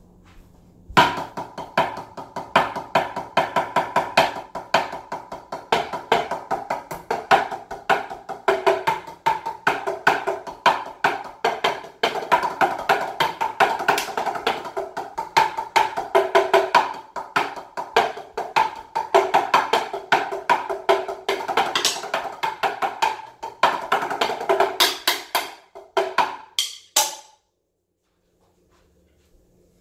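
Rapid drumming with sticks on a set of several tuned drums, many sharp strikes a second at a few distinct pitches. The playing starts about a second in and stops near the end.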